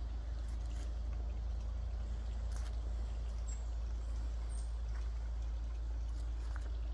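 Quiet outdoor ambience under a steady low rumble, like wind or handling on the microphone, with a few faint soft taps and two brief high chirps near the middle.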